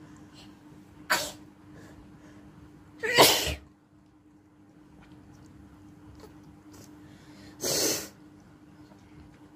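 Three sneezes: a short one about a second in, a louder, longer one about three seconds in, and another near the end.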